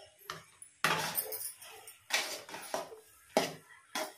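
Perforated steel ladle scraping and clinking against a metal kadai while stirring a thick, milk-soaked rusk halva mixture: about six clinks and scrapes, the loudest about a second in and again around three and a half seconds.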